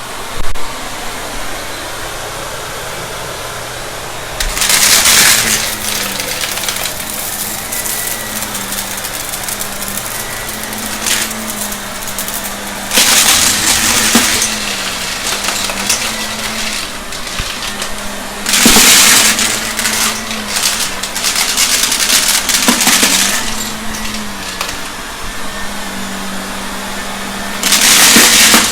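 Shark vacuum cleaner running, its motor note dipping and rising every second or two as it is pushed back and forth. Several loud rattling surges come as hard debris is sucked up, the loudest around 5, 13, 19 and 28 seconds in.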